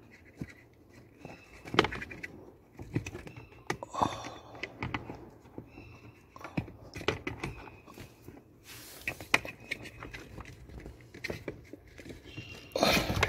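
A new pleated paper cabin air filter being pushed and worked by hand into its tight plastic housing: irregular scraping, crackling and clicking of paper and plastic, with a louder scrape near the end.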